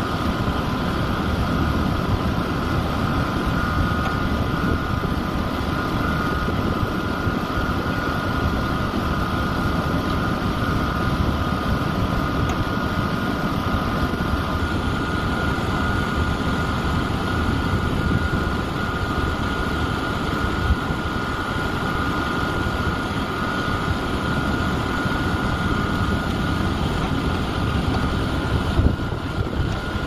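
A truck-mounted concrete boom pump's diesel engine runs steadily, with a constant whine over it, while the truck's hydraulic boom unfolds.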